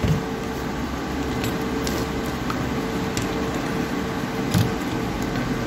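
A few faint clicks and light knocks of a laptop motherboard and its leads being handled on the workbench, over a steady hum with one constant mid-pitched tone.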